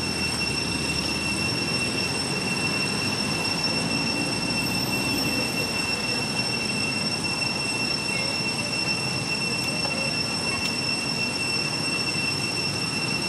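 Steady background drone: a constant high-pitched whine over an even hiss, unchanging throughout.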